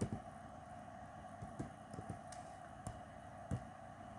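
Faint, scattered taps of typing on the Samsung Galaxy Tab S6, about half a dozen short clicks, over a steady low background hum.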